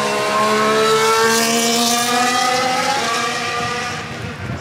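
A 2022 Formula 1 car's turbocharged V6 hybrid power unit accelerating past on a wet track, its engine note rising steadily in pitch over a hiss of tyre spray, then fading away in the last half second.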